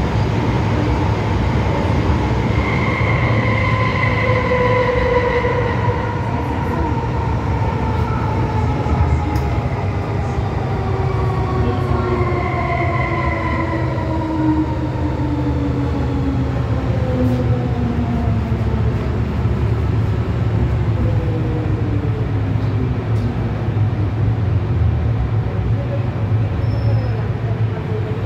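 Inside an MTR M-Train electric carriage: the traction motors' whine falls slowly in pitch through several tones as the train slows under electric braking. Underneath runs a steady low rumble of the wheels on the track.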